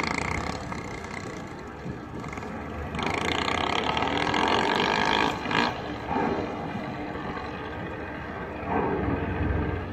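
Motorcycle engine running as the bike pulls away, with a louder rough stretch of a couple of seconds near the middle.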